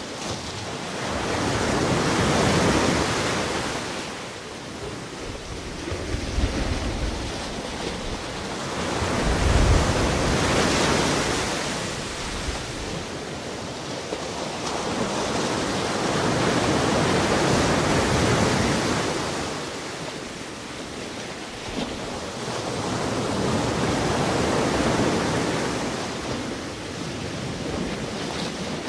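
Ocean surf washing up the shore, the sound of the waves swelling and fading in slow cycles about every seven seconds.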